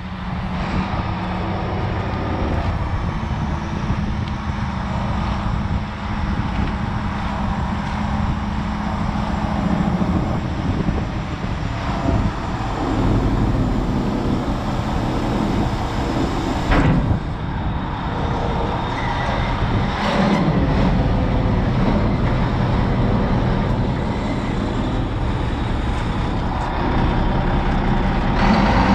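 Volvo A40D articulated haul truck's diesel engine running at idle, steady throughout.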